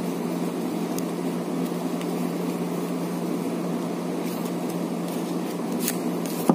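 Steady low hum and hiss of background room noise, with a few faint clicks from a new deck of playing cards being fanned and sorted in the hands.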